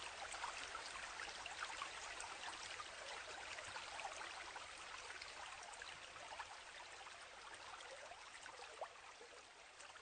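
Flowing stream water, an even rush with fine trickling and bubbling, fading out gradually.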